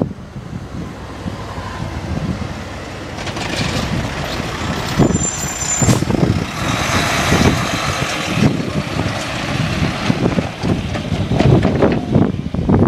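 Large trucks driving past close by over the crossing, with engine rumble and tyre noise that build about three seconds in and stay loud. A brief high squeal comes around five seconds in, and wind buffets the microphone.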